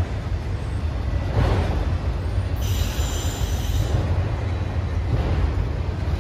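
Freight train rumbling along the rails. About two and a half seconds in, a high wheel squeal rings out for about a second and a half.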